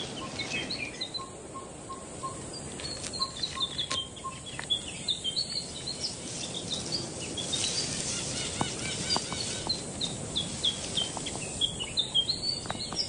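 Forest birds chirping and calling over a steady natural background, with a run of short, evenly spaced notes at one pitch, about three or four a second, in the first four seconds, and a few sharp clicks.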